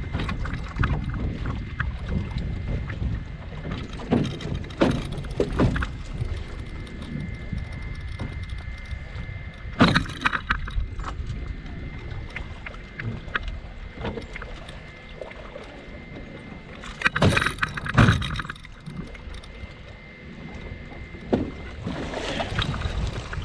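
Wind buffeting the microphone and water splashing against the hull of a small sailboat under way, with louder splashes about ten seconds in and again around seventeen to eighteen seconds in.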